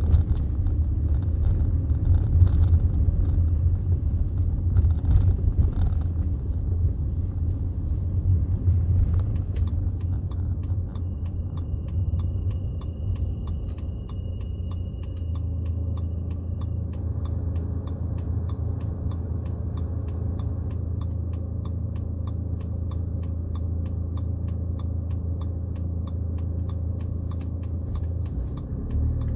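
Interior sound of a BMW 320d's 2.0-litre four-cylinder turbodiesel (M47D20) with road rumble, a steady low drone that eases a little about a third of the way in. From then on a quick, regular light ticking runs alongside it.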